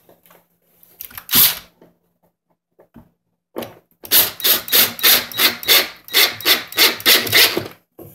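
Cordless drill driving a screw through a chrome metal corner bracket into a wooden table panel: a short burst about a second in, then a long run of even pulses, about three or four a second, that stops just before the end.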